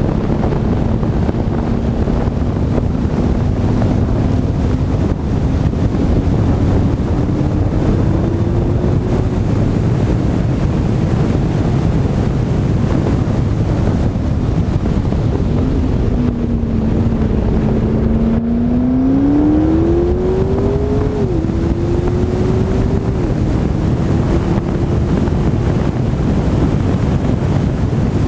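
Heavy wind rush on the camera microphone at track speed, with the McLaren 12C's twin-turbo V8 faintly underneath. The engine note climbs in pitch under acceleration, drops suddenly at an upshift about two-thirds of the way in, then climbs again.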